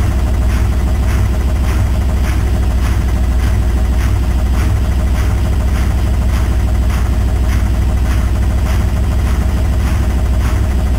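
Indesit WILL85 front-loading washing machine in its spin cycle: the drum spinning at speed with a deep, steady rumble and a faint swish repeating about twice a second.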